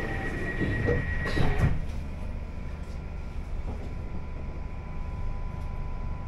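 Rapid door-closing warning beeps on an Elizabeth line train, ending with the sliding doors shutting in a loud clunk about a second and a half in. Then the carriage's steady low hum, with a faint steady whine joining about four seconds in.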